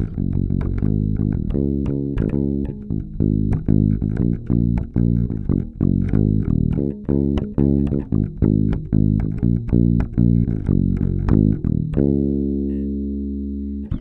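Warwick Thumb BO 5 Pro Series five-string electric bass played fingerstyle, both pickups on and bass and treble set to the middle: a quick run of plucked notes, then a single low note left ringing and fading for the last two seconds.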